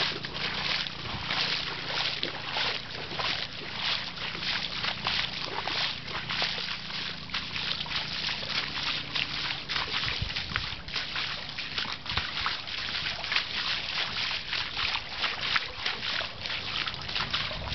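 Shallow floodwater splashing and sloshing underfoot as someone wades through it, a dense, steady patter of small splashes.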